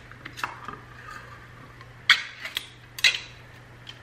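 A 15-ounce metal can of tomato sauce being opened by hand: a handful of sharp metallic clicks and snaps, the loudest about two and three seconds in.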